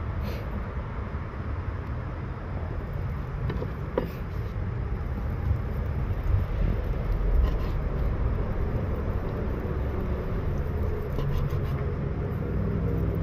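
Steady low rumble of outdoor background noise, with a few faint ticks of a kitchen knife meeting a plastic cutting board, the sharpest about four seconds in.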